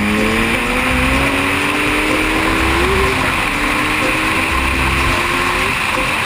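Yamaha FZ1-N's 998 cc inline-four, breathing through a Mivv Suono exhaust, pulls hard under acceleration on a race track. Its note climbs steadily for about five and a half seconds, then drops away near the end. Heavy wind rush on the onboard camera runs throughout.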